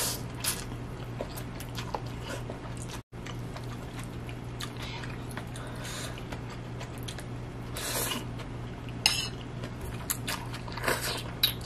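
A person slurping and chewing instant noodles, with a few short, sharp slurps, the clearest near the start, around eight and nine seconds in and near the end. A steady low hum runs underneath.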